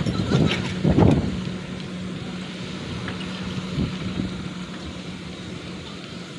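Kobelco SK200 excavator's diesel engine running steadily with a constant low hum, with a louder low burst of noise about a second in.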